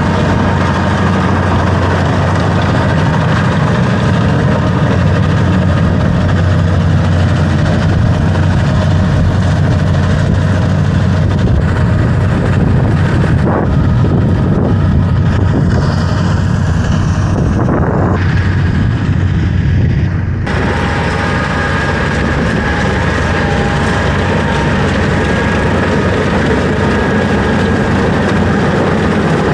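Tractor engine running steadily; the sound changes abruptly about twenty seconds in.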